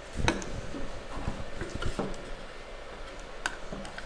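Light clicks and taps of hands handling the cab and body parts of a radio-controlled skid steer model, with a sharper click about a quarter second in and another about three and a half seconds in.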